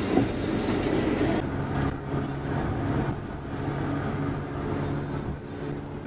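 Steady engine hum and road rumble heard from inside a moving passenger minibus.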